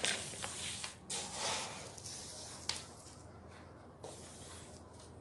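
Plastic slotted litter scoop scraping through clumping cat litter in a plastic litter box, the loose granules rustling and sifting off as a clump is lifted out, with a light tap about two and a half seconds in.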